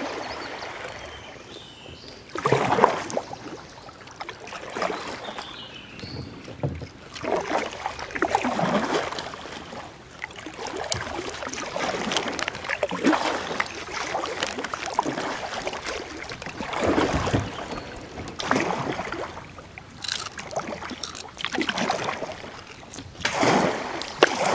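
Kayak paddle strokes dipping and splashing in the river, about one every two seconds, over the wash of the moving water.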